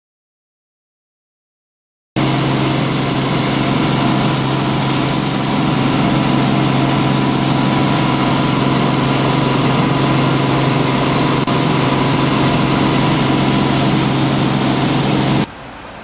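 Light helicopter's engine and rotors heard from inside the cabin in flight: a loud, steady drone that starts after about two seconds of silence. It drops to a fainter noise near the end.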